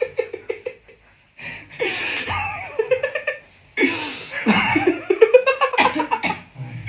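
People laughing: a quick run of 'ha-ha' pulses trails off about a second in, then after a short pause comes a longer stretch of breathy, wheezing laughter in bursts.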